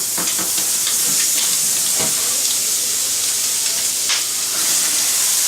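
A fresh piece of butter spread sizzling in a hot pan as a tortilla sandwich toasts: a steady hiss, with two light ticks about two and four seconds in.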